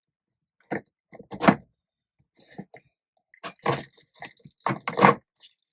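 Knocks and clatters of craft tools and a jar of paste being picked up and set down on a work surface: a couple of separate knocks, then a busier run of them near the end.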